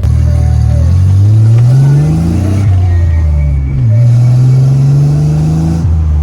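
Nissan 300ZX (Z31) V6 engine pulling hard under acceleration. The revs climb in pitch and fall back at gear changes, about two and a half seconds in and again near the end.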